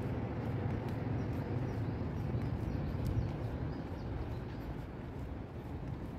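Steady low rumble of city street ambience, mostly distant traffic, with a couple of faint clicks.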